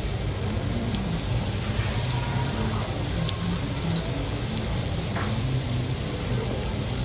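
Food sizzling on a teppanyaki iron griddle, a steady hiss with a low hum underneath and a few faint ticks.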